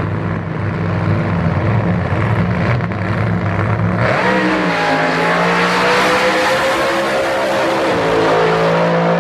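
Drag car's V8 idling loudly at the start line, then launching at about four seconds into a full-throttle run down the strip, its pitch climbing and wavering as it accelerates.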